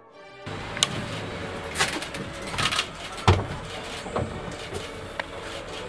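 Outdoor wildlife recording: short animal calls and sharp sounds, roughly one a second, over a steady hiss, the strongest about three seconds in.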